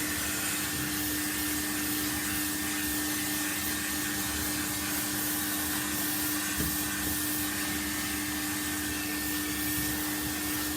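Vacuum cleaner running steadily: a constant motor hum with a fixed low tone and a fainter high whine over the rush of suction air. There is one small knock about two-thirds of the way through.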